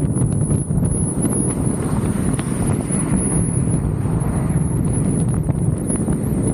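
Wind buffeting the microphone of a camera mounted on the car's hood, with road and tyre noise from the car at highway speed, dotted with frequent small crackles and knocks. A thin, wavering high whine sits above it.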